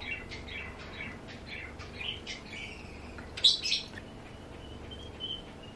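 Small birds chirping in the background: a run of short high chirps, then two louder sharp notes about three and a half seconds in, and a thin high whistle held for over a second near the end.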